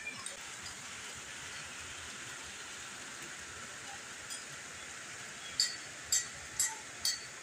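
Steady hiss of falling rain, with four short sharp ticks about half a second apart near the end.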